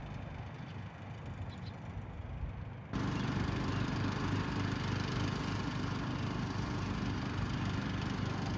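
Steady car engine and road noise from a vehicle driving, with a low hum under an even rush. It steps up suddenly about three seconds in and stays level.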